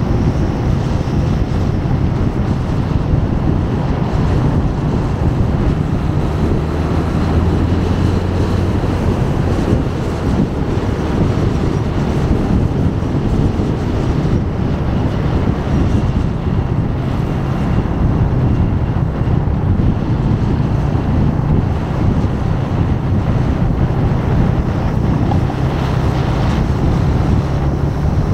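Motorcycle engine running on the move, its note dropping lower for a few seconds early on and coming back up, with wind buffeting the microphone throughout.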